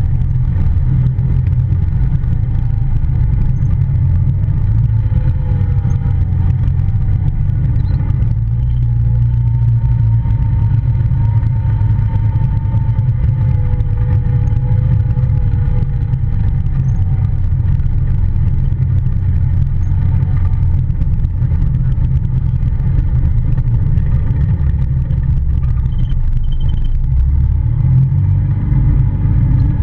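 Polaris Ranger side-by-side driving, its engine and drivetrain giving a steady low drone with a fainter whine that slowly rises and falls in pitch.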